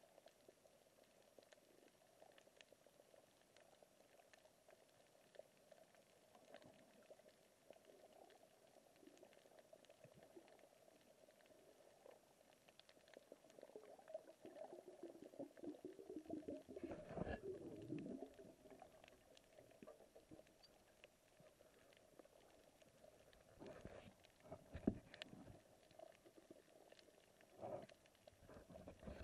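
Faint underwater reef ambience picked up by a submerged camera: scattered clicks and crackles over a low steady hum. A louder swishing rumble swells and fades about halfway through, and a few sharp knocks come near the end.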